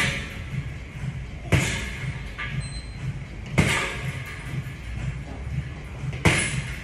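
Gloved punches landing on a hanging teardrop-shaped punching bag: three hard smacks about two seconds apart, each echoing briefly in a large room.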